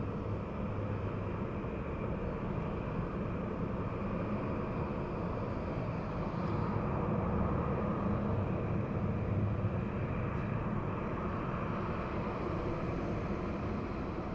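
Jet engines of a Boeing 737-900 at takeoff power during its takeoff roll: a steady rumble that swells slightly about halfway through.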